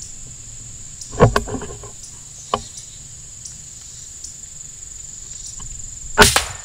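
Shot from an FX Impact .22 PCP air rifle: a sharp crack near the end, the loudest sound. Under it runs a steady high insect buzz, with a short sound about a second in and a faint click a little later.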